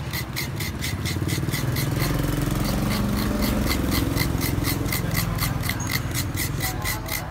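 Fresh coconut meat being scraped out of a half coconut shell with a metal scraper, in quick rhythmic rasping strokes about four a second. A steady low engine hum runs underneath.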